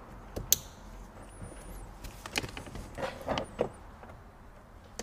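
Plastic wiring connectors for a car wing mirror clicking home, with one sharp click about half a second in. A few softer plastic knocks and rubbing sounds follow as the parts inside the door are handled.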